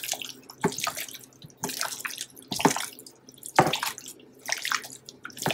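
Wet squelching and slapping of raw chicken pieces being mixed by a gloved hand through mustard and seasonings in a glass bowl, in irregular squishes with the strongest coming roughly once a second.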